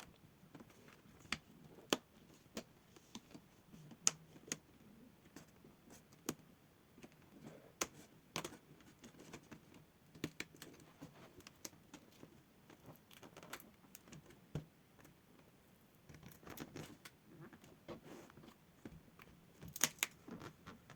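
Scattered light plastic clicks and taps from prying at a ThinkPad laptop's screen bezel and handling its clips, irregular and a few seconds apart, with a short cluster near the end.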